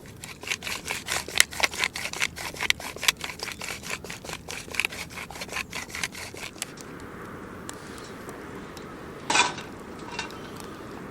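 Rock salt grinder being twisted: a quick run of crunching, clicking grinds, several a second, which stops about two-thirds of the way through. One sharper knock follows near the end.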